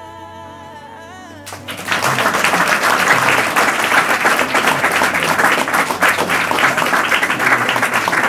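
A held musical chord stops about a second and a half in, and a crowd breaks into loud, steady applause that carries on to the end.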